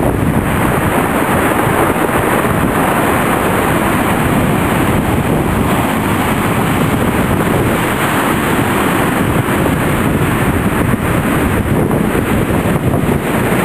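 Heavy storm surf breaking and washing in, with strong wind buffeting the microphone; a loud, steady noise without let-up.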